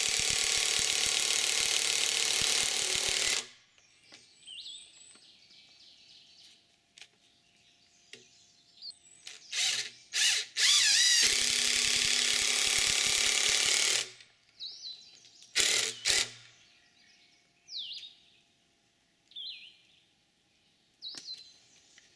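Cordless power driver driving screws to fasten a steel end plate to the end of a log: a long run of about three and a half seconds, short bursts, a second long run of about three seconds, then two more short bursts.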